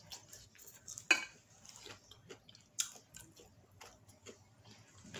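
A person chewing food close to the microphone, with small wet mouth clicks and smacks as she licks sauce from her fingers. There is a brief hum about a second in.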